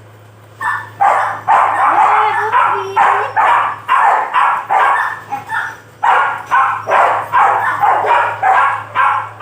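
A dog barking over and over, about two loud barks a second, after a short pause at the start.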